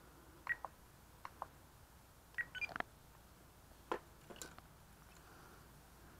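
A few short, faint beeps and clicks from a Spektrum DX6 radio transmitter as its scroll wheel is worked to select a model. A few knocks and clicks follow as the transmitter is set down and the quadcopter's battery lead is handled.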